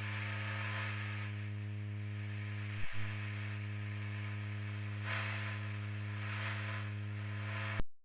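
Steady electrical hum with a light hiss: dead air on a weather-radio broadcast. There is a single click about three seconds in, and the sound cuts off suddenly just before the end.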